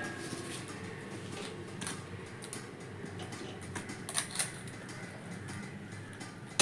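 Quiet steady low hum of room background, with a few faint taps and rustles as steamed leaf-wrapped parcels are handled on a plate, two slightly louder taps about four seconds in.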